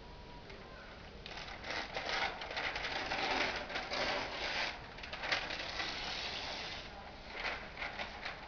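A large flip-chart paper sheet being lifted and turned over the top of the pad, rustling and crackling for a few seconds, with a shorter rustle near the end.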